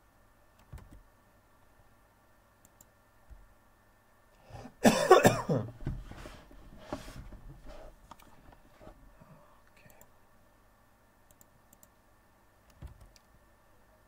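A person coughing close to the microphone: one loud cough about five seconds in, followed by a few softer coughs.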